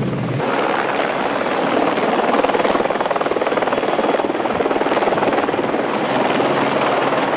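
Helicopter close by, its rotor blades beating rapidly over a steady loud rush.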